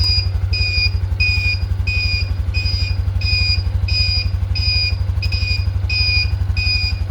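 Aftermarket turn-signal buzzer on a Honda Super Cub 125 beeping in time with the flashing turn signal, a high two-note tone about one and a half times a second. Under it the bike's air-cooled single-cylinder engine idles steadily.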